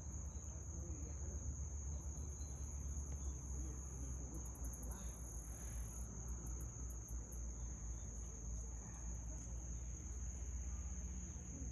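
Steady, high-pitched insect trilling, with a second, faster pulsing insect call above it from about four to seven seconds in, over a low rumble.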